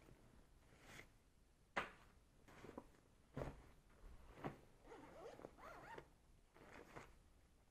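Zippers on an Osprey travel backpack being pulled in short, quick runs, about seven over several seconds, the sharpest about two seconds in. Nylon fabric rustles between the pulls as the compartments are opened and rummaged through.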